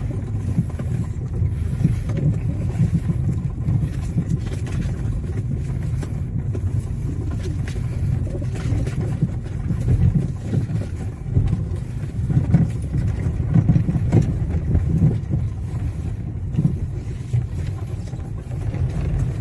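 Car driving on a dirt road, heard from inside the cabin: a steady low rumble of engine and tyres with uneven swells in loudness.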